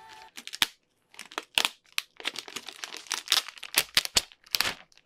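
Clear protective plastic film being peeled off a laptop's underside, crinkling with many irregular sharp crackles.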